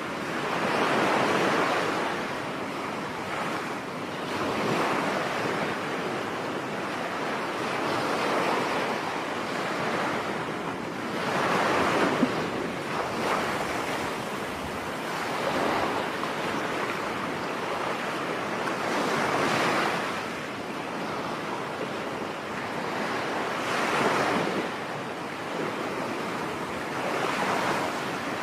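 Ocean waves breaking on a beach, a steady wash of surf that swells and falls back every four seconds or so.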